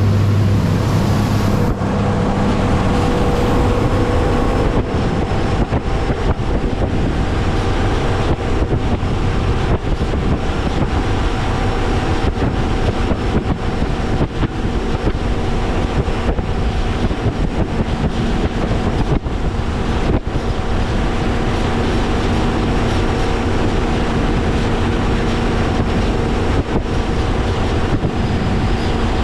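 Mercury Pro XS 200 outboard driving a Nitro Z19 bass boat at a steady speed through rough water, with heavy wind noise on the microphone.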